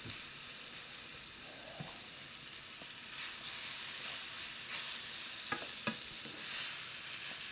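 Stew meat sizzling as it browns in hot oil in a non-stick fry pan, with a few light clicks and scrapes of a utensil stirring it.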